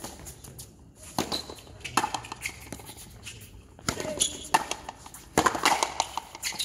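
Frontenis rally: the rubber ball cracks off the rackets and the fronton wall in a run of sharp knocks, with several in quick succession near the end, echoing in the covered court.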